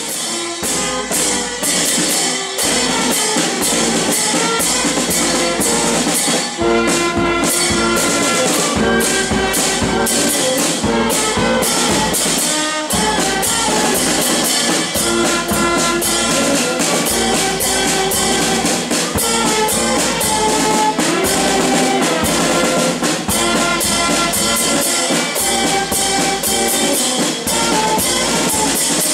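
Small street band playing: saxophones, clarinets and a low brass horn carrying the tune over snare drums and a bass drum with crash cymbals, which keep a steady, driving beat.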